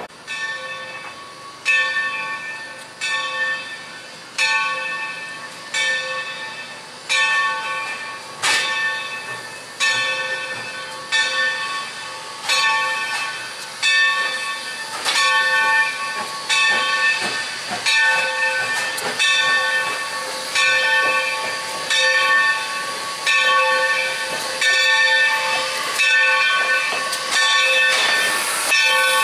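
Steam locomotive No. 3025's bell ringing steadily, about one stroke every second and a bit, each ring dying away, over a light hiss of steam; it grows louder as the engine draws near.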